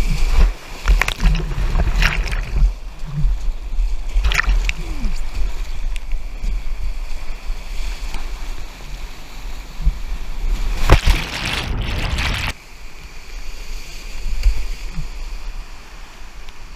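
Whitewater rapids rushing around a stand-up paddleboard, heard close up from a camera on the board, with waves splashing over the microphone in repeated sudden hits and heavy low buffeting. The noise drops abruptly about twelve seconds in to a lighter rush of moving water.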